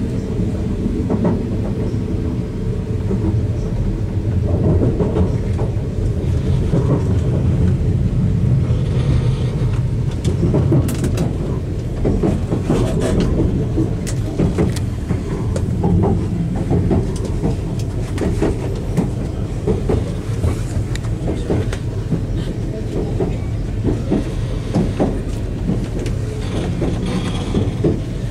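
Inside a Great Western Railway passenger carriage on the move: a steady low rumble from the train, with wheels clicking over rail joints again and again.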